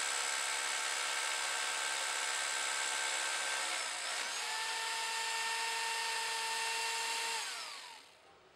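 Bosch rotary hammer drill boring into a limestone block, running steadily with a high motor whine. About four seconds in the motor briefly slows and spins back up, and near the end it winds down with a falling pitch and stops.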